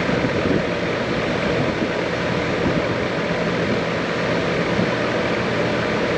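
Central air conditioner's outdoor condensing unit running: the condenser fan's steady rushing air with a low hum from the compressor underneath. The unit is running again after its failed control board was replaced.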